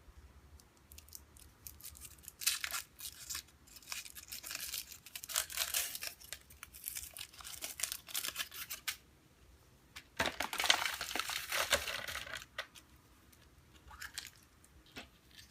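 Foil wrapper of a chocolate surprise egg crinkling and tearing as it is unwrapped, in two long spells of rustling with a short one near the end.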